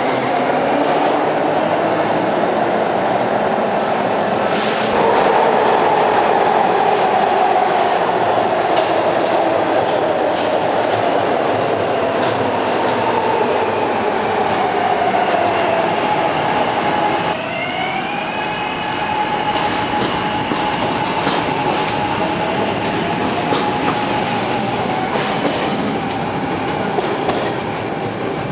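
Stainless steel subway trains running through an underground station: a loud, steady rumble of wheels on rail with a few sharp clacks, and the traction motors' whine gliding up and down in pitch. About two-thirds of the way through, a new, higher whine glides up and then holds steady.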